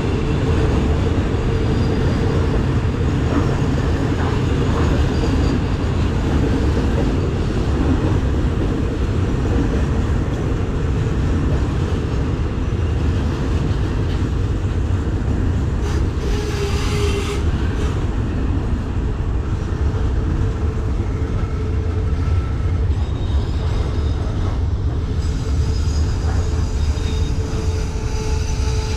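Container freight train rolling steadily past, a continuous low rumble from the flatcars' wheels on the rails. Thin wheel squeals come and go and are strongest near the end.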